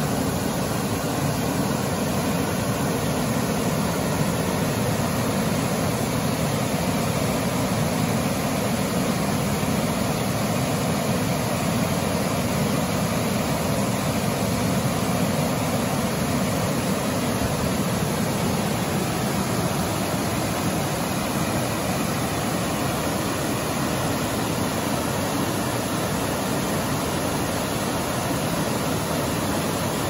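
Carter Falls, a waterfall in heavy, muddy flow, cascading down sloping rock ledges into a pool: a deep, steady rush of water that never breaks or changes.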